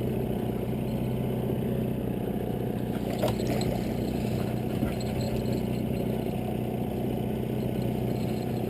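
Boat engine idling with a steady hum.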